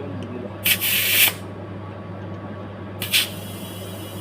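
Two bursts of compressed air hissing from an air chuck on a bicycle tyre valve, the first about half a second long and the second shorter, about three seconds in. The tyre is not taking air.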